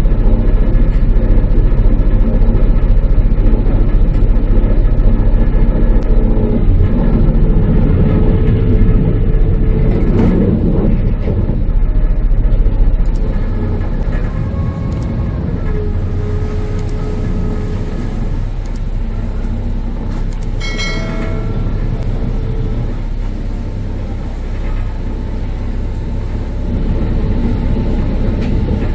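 Passenger ferry's engines running with a steady low rumble as it comes alongside the wharf, easing off about halfway through.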